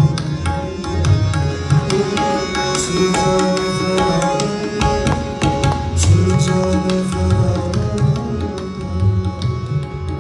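Live Afghan band music: tabla drums struck in a busy rhythm over sustained harmonium and keyboard tones.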